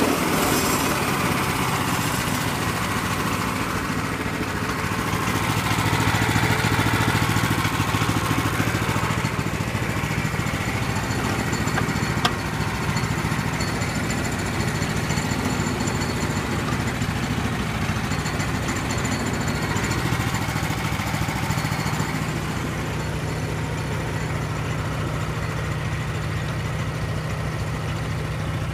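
Small engine idling steadily, with a sharp knock about twelve seconds in.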